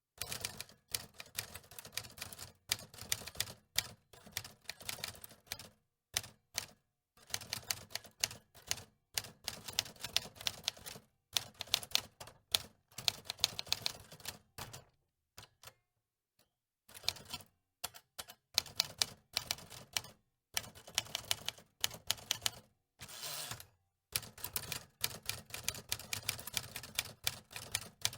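Manual typewriter being typed on: rapid runs of sharp key strikes in bursts of a few seconds, broken by short pauses.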